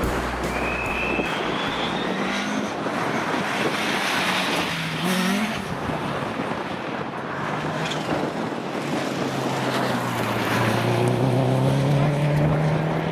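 Rally car engines and tyres on a wet tarmac stage: a classic Ford Escort rally car revs and slides off the road, its tyres hissing through standing water. Near the end a second rally car's engine comes in, rising in pitch as it approaches.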